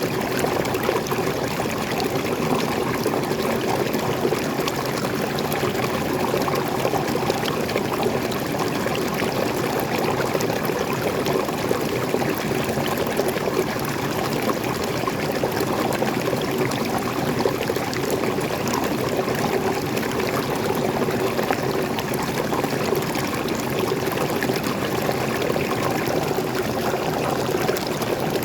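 Water of a small forest waterfall and stream, flowing and splashing in a steady, unbroken rush.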